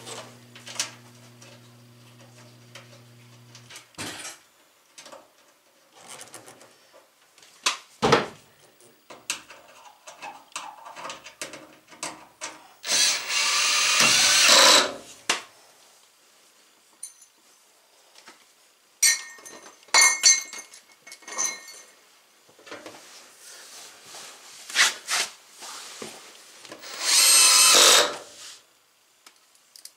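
Cordless drill-driver running in short runs, driving screws into a washing machine's frame: a longer run about 13 seconds in and another near the end, with brief whirs around 20 seconds in. Scattered clicks and knocks of parts being handled fall between.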